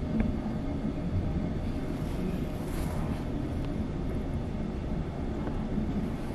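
Steady low rumble inside a 25G passenger coach rolling slowly past a station platform, with a faint hum and a few light clicks.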